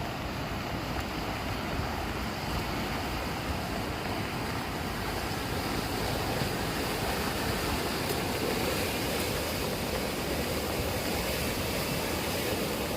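Steady rush of fast-flowing floodwater in a swollen irrigation channel running high after long rain, with no break or change.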